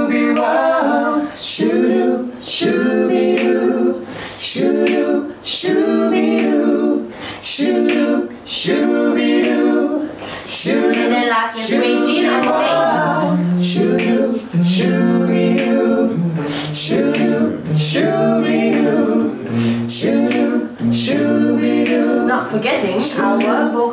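A cappella vocal group singing in harmony, voices only with no instruments, the chords pulsing in a steady rhythm. A low bass line joins about halfway through.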